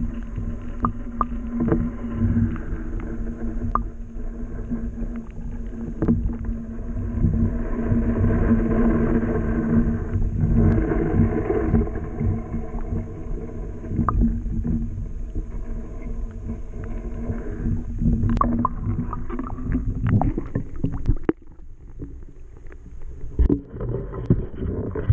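Underwater sound through a submerged GoPro Hero 4 Session: a low rumble of water noise with a steady hum and scattered clicks and knocks. About 21 seconds in it drops suddenly quieter as the camera is lifted out of the water.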